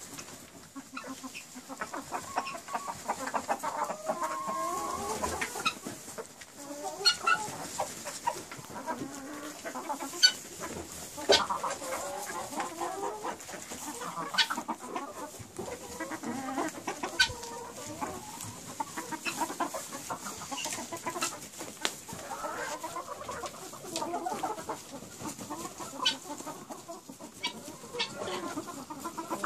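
A flock of purebred Italiener chickens, hens and roosters, clucking, with many calls overlapping and sharp clicks scattered throughout.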